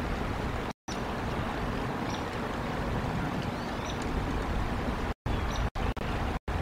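Steady outdoor rushing noise picked up by the eagle cam's microphone, with a few faint high chirps. The audio cuts out completely for a moment about a second in, and several more times near the end.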